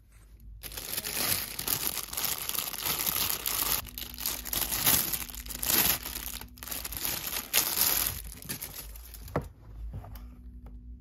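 Clear plastic film crinkling and tearing as it is peeled by hand off a silicone pop-it fidget toy. The crackling stops about a second and a half before the end, leaving a few faint taps.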